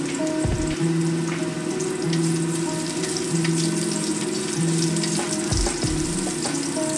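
Food sizzling and crackling in a steel wok as it is stir-fried, with a wooden spatula stirring and scraping through it. Background music with a repeating low melody plays over it.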